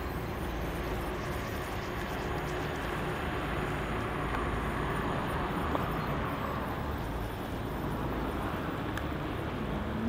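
Steady low rumble of distant traffic and engines carried across the harbour, swelling slightly about four to seven seconds in, with a few faint clicks.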